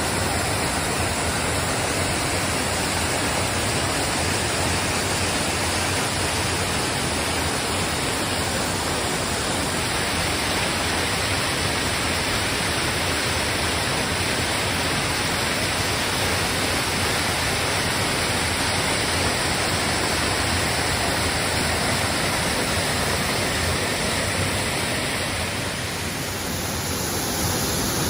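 Waterfall rushing steadily: a constant, even wash of falling water.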